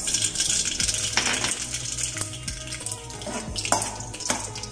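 Mustard seeds sizzling in hot oil in a steel kadai while the tempering (tadka) is made, with metal clinks and scraping as a steel spoon stirs against the pan, more often in the second half.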